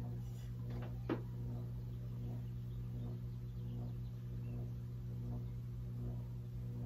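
Steady low electrical or mechanical hum, with one short click about a second in.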